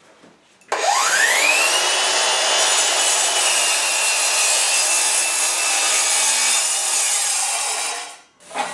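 Metabo KGS18 LTX 216 18-volt cordless sliding compound miter saw cutting once through a wooden board. Its motor spins up with a rising whine about a second in and holds a steady pitch through the crosscut. The pitch falls away as it winds down near the end.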